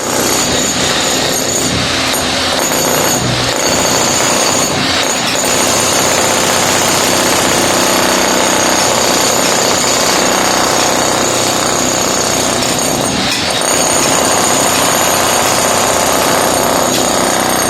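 Electric hammer drill (demolition breaker) hammering continuously into a concrete floor, breaking it up, with a few short breaks.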